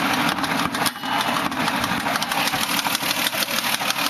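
2005 Mazda 6's 3.0 Duratec V6 idling with a loud, rapid ticking from the engine. A fresh oil change has not cured the tick, and the owner wonders whether it is valve-related.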